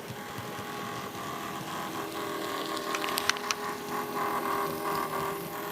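Bachmann Class 47 OO gauge model diesel locomotive running with a steady grinding whine from its motor and gear drive. There are a few sharp clicks about three seconds in. The owner guesses the grinding comes from the motor bearings needing oil.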